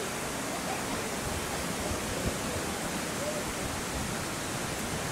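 Steady, even rushing background noise with no clear event.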